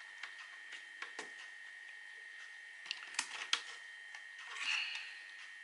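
A screwdriver levering out the loose keyboard of an HP TC4400 notebook: scattered faint plastic clicks and ticks, a few sharper ones about three seconds in, and a short soft scrape near the end.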